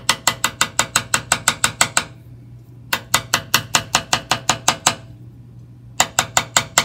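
Glass test tube rapped mouth-down on filter paper on a bench, about eight quick, ringing knocks a second in three runs, to shake out the last of the wet nitrogen triiodide slurry.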